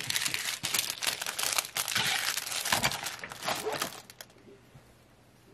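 Thin clear plastic packaging bags crinkling and rustling as they are handled, a dense crackle that stops about four seconds in.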